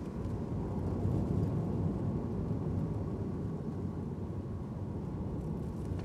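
Mazda NC Roadster driving along at steady speed with the top down: a steady low rumble of engine and road noise in the open cockpit, swelling slightly about a second in.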